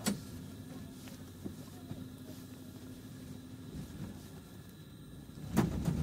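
Tram interior ambience: a steady low hum with faint ticks, opening with a sharp click. Near the end a loud clunk comes, and the tram's low rumble then grows much louder.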